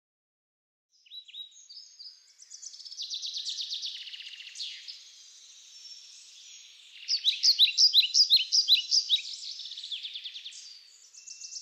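Songbirds chirping and trilling, a mix of short sweeping notes and rapid trills, growing loudest with a run of quick bright notes about seven seconds in.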